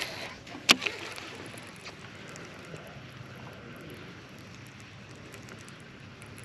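A sharp click just under a second in as the baitcasting reel (a Shimano Curado K) is engaged after the cast, then a slow retrieve with faint light ticking over a steady hiss of wind on the microphone.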